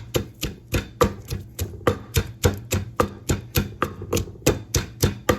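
Pestle pounding chilies and garlic in a mortar for Lao long bean salad: quick, even strokes at about four a second.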